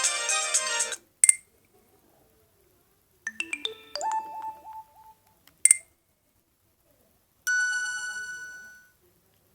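Mobile phone ringtones played one after another through the Alcatel One Touch OT-810's small speaker. A busy melody cuts off about a second in. A short run of tones follows around the middle, then a single bell-like chime that fades out near the end, with sharp clicks between the tones.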